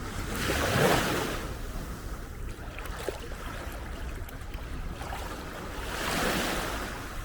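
Small sea waves washing onto a beach: two surges of surf, about a second in and again near the end, over a steady low rumble of wind on the microphone.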